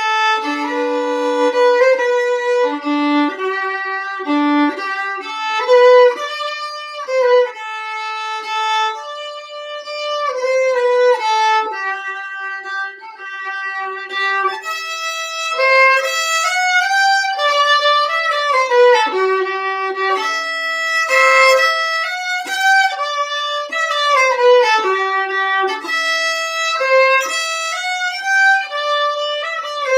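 Solo fiddle playing a lively melody, bowed note after note with frequent double stops.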